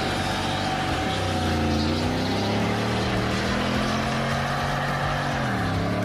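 An engine running at a steady speed, its pitch dropping briefly about a second in and again near the end before coming back up.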